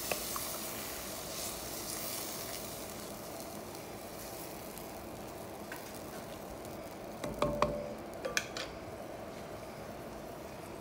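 Stock and vegetables sizzling in a hot cast iron Dutch oven, a steady hiss that eases off over the first few seconds. A few sharp clicks and knocks come about seven to eight and a half seconds in.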